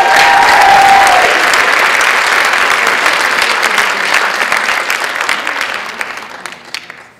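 Audience applauding, with one voice letting out a long held whoop over the first second. The applause fades away near the end.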